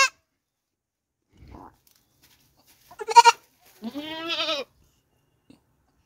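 Goat kid bleating twice, about three and four seconds in: a short, broken bleat, then a longer quavering one.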